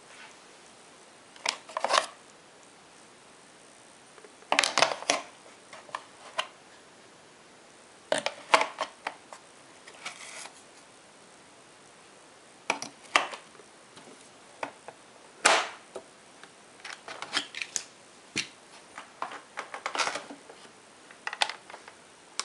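Plastic clicks and clatters of a Miele Silverstar S280i vacuum cleaner being handled: attachment tools pulled from the on-board storage compartment and its covers opened, in irregular clusters of sharp knocks.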